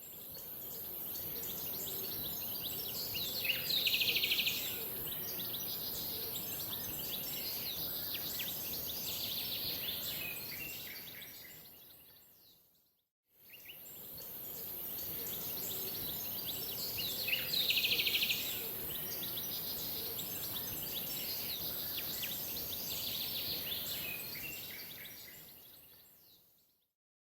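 Outdoor nature ambience: birds chirping over a steady high hiss, with a bright, rapid bird trill about four seconds in. The same roughly 13-second recording fades out, then plays again, so the trill comes back about 18 seconds in.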